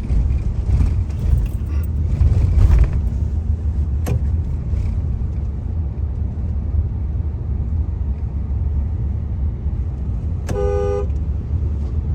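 Car driving on a paved road, a steady low rumble of engine and tyres heard from inside the cabin, with a single click about four seconds in. Near the end a vehicle horn honks once, briefly, for about half a second.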